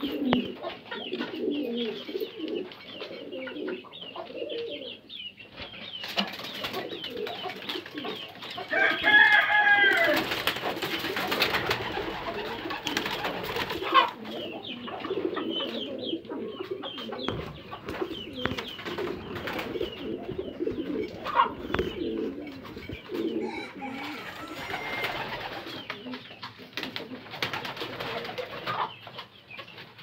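Domestic pigeons cooing over and over. About nine seconds in, a louder, higher-pitched call stands out, and a few sharp knocks come later.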